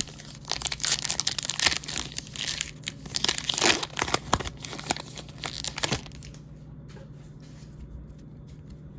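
A wax-paper-style baseball card pack wrapper being torn open and crinkled by hand: a dense run of crackling, tearing rustles that stops about six seconds in.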